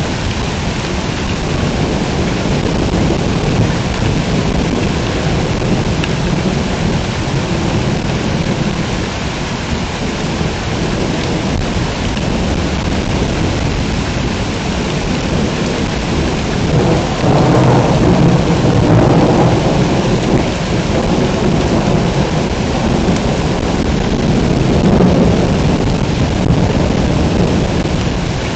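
Heavy rain pouring steadily in a thunderstorm. A deep thunder rumble swells about two-thirds of the way in and rolls on for a few seconds, with another near the end.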